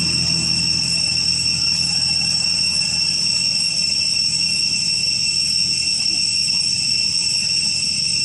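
Steady insect chorus: a constant shrill high-pitched drone that holds one pitch without a break.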